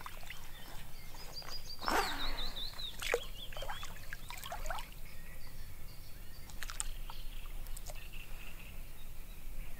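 Birds singing, a warbling, chirping song most prominent between about one and a half and four seconds in, with a brief rush of noise about two seconds in and a few faint clicks.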